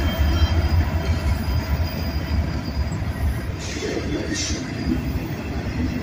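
A Union Pacific freight train passing close by: the last diesel locomotives go by with a steady low rumble, then double-stack container well cars roll past. Two brief high-pitched wheel squeals come a little over halfway through.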